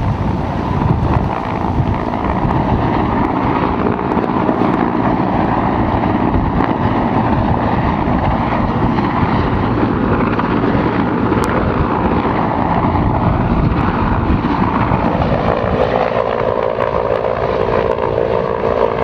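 Wind buffeting the microphone over a steady engine drone. About three-quarters of the way through, a steady hum from a firefighting helicopter carrying a slung water bucket joins in.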